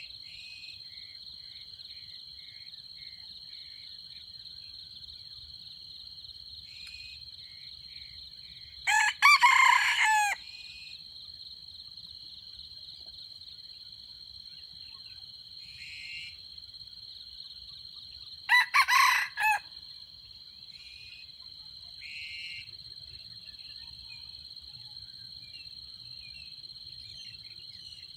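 Red junglefowl rooster crowing twice, each crow short, about nine seconds apart, over a steady high-pitched insect drone.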